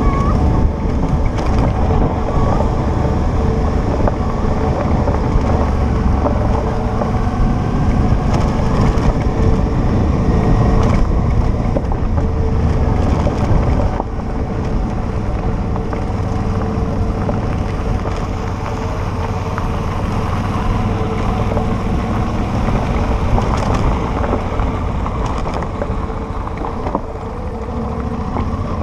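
Motorcycle engine running steadily while riding on a gravel road, heard from on board the bike with wind noise over the microphone. It eases slightly quieter about halfway through.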